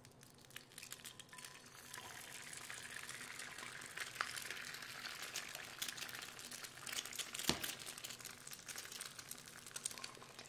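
Eggs frying in hot oil and butter in a carbon steel skillet: a crackling sizzle that builds from about a second and a half in and carries on, with scattered small pops. A single sharp click about seven and a half seconds in.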